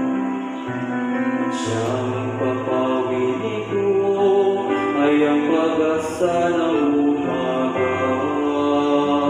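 Small mixed church choir singing a Tagalog Marian hymn into microphones, in long held notes and close harmony.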